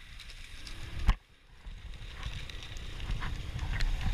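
ATV ride on a rough gravel trail heard through a helmet-mounted action camera: wind rumbling on the microphone with knocks and rattles from the bumpy ride, which grow louder toward the end. The sound drops out briefly about a second in.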